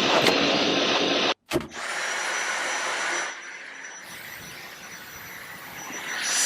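Vacuum cleaner motor running with a steady high whine. The sound cuts off abruptly for an instant about a second and a half in, resumes, then drops to a lower level about three seconds in.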